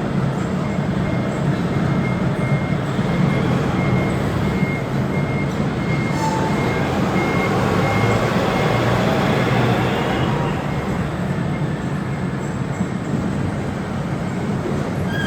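Potato harvesting machinery running: a steady engine and machinery drone, with a faint repeated beep during the first half.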